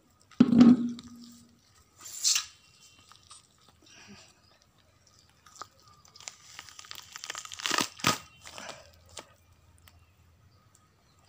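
Skin being peeled and torn by hand off a raw chicken piece, in short bouts of tearing with a longer run from about six to nine seconds in that ends in two sharp clicks. A loud low thump comes about half a second in.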